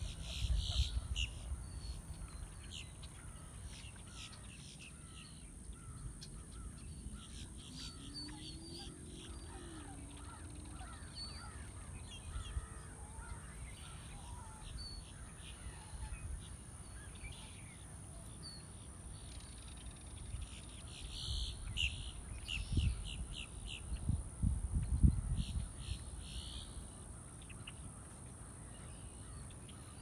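Crows cawing in several bursts of quick repeated calls, near the start, about a third of the way in, and twice in the last third. Low rumbles come near the end alongside the last calls.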